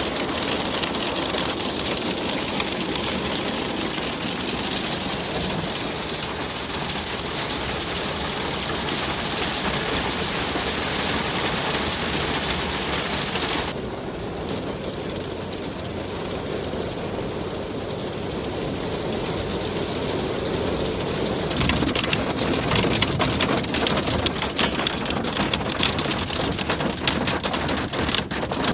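Hailstorm: a dense, steady patter of hailstones striking surfaces. The sound shifts abruptly a few times, and in the last several seconds it becomes a louder, sharper clatter of individual hits.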